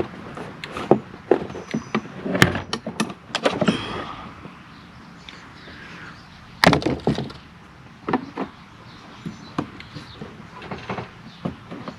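Irregular clicks, taps and knocks of hands working parts of a pickup truck's interior door handle assembly, with a cluster of rattling clicks early on and a louder knock about halfway through.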